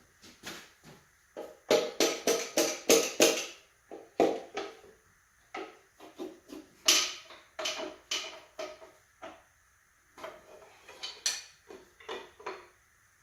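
Sharp metallic knocks and taps, each ringing briefly. A fast run of about four a second comes near two seconds in, then scattered knocks follow: the number 5 piston and connecting rod being knocked free during the teardown of an LS V8 bottom end.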